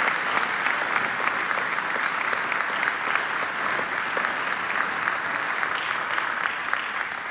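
Audience applauding, a dense patter of many hands clapping that slowly thins toward the end.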